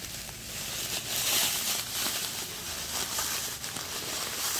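Crinkling and rustling of a white bag being handled over a tub of potting soil: a dense run of small crackles that grows louder about a second in.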